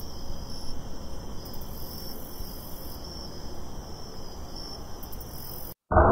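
Crickets chirping in short repeated high pulses over a steady hiss, a night-time ambience. Near the end it cuts out for an instant and a loud swelling sound with rising pitch begins.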